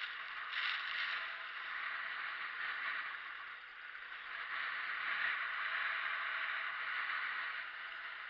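Skis sliding and carving on a groomed piste: a steady scraping hiss that swells and eases every couple of seconds with the turns.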